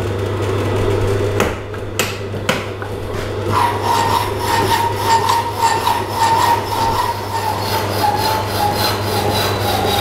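Rapidor power hacksaw cutting hot-rolled steel bar: the electric motor hums steadily while the blade rasps back and forth in a regular stroke. A steady whining tone joins in about three and a half seconds in.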